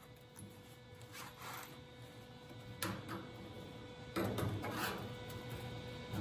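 A hand-held tool scraping and rasping in short bursts against the steel lower quarter panel of a 1930 Ford roadster. The bursts grow louder, with the longest and loudest coming about four seconds in.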